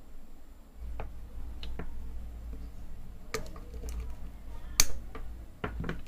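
Scattered clicks and light knocks of small tools and parts being handled on a wooden workbench over a low rumble, with the sharpest click about three-quarters of the way through.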